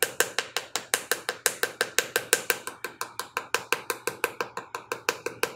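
A wooden paddle stick tapping quickly and evenly against the soft clay wall of a slab-built box, about seven taps a second, paddling the wall even and compact where a hole was filled in.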